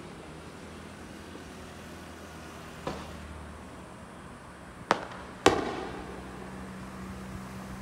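Aerial fireworks shells bursting in the sky: a faint bang about three seconds in, then a sharp bang near five seconds and a louder one half a second later that echoes away.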